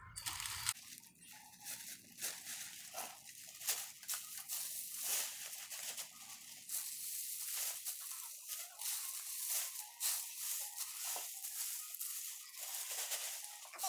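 Dry leaves crunching and crackling in irregular handfuls as they are scooped into a black plastic refuse bag, the bag rustling as it is handled.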